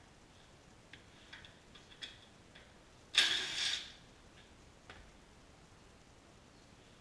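Cordless DeWalt driver running in one short burst of under a second, about three seconds in, turning a fastener on the engine. Before it come a few light clicks of tools and small parts being handled, and one more click follows.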